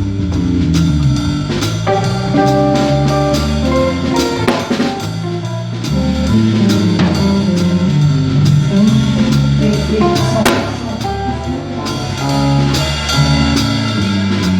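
A live band playing instrumental music: a drum kit keeping a steady beat under a bass line and sustained chords from keyboard or guitar.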